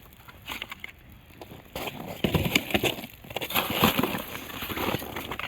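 Cardboard and kindling in a just-lit campfire crackling as it catches, with irregular sharp pops that grow denser and louder about two seconds in.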